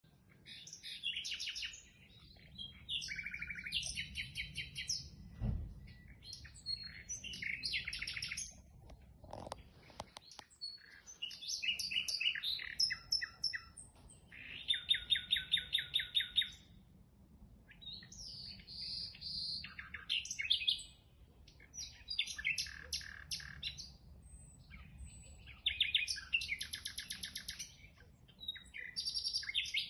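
A songbird singing in repeated phrases of rapid chirps and trills separated by short pauses, over a faint low hum. There is a brief dull thump about five and a half seconds in.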